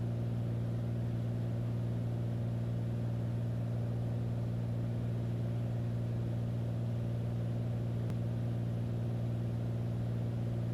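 Steady drone of a Beechcraft A36 Bonanza's six-cylinder piston engine and propeller heard inside the cockpit as the plane descends, a constant low hum that does not change in pitch.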